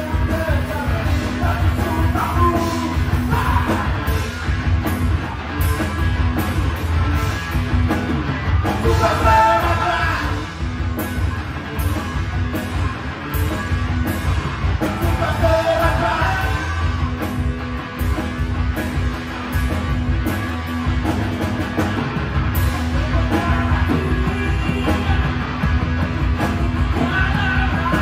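Live rock band playing: electric guitar, bass guitar and drums, with a male singer's vocal phrases coming and going over the steady beat.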